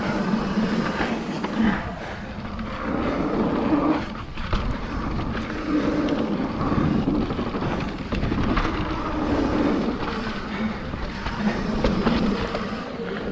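Mountain bike riding down a dirt trail: tyres rolling over the ground and the bike rattling over bumps, with wind noise on the microphone.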